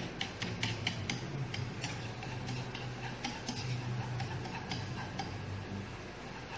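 Minced lemongrass, garlic and chili frying in hot oil in a nonstick pan, stirred with wooden chopsticks: irregular small clicks and crackles over a faint sizzle, with a steady low hum underneath.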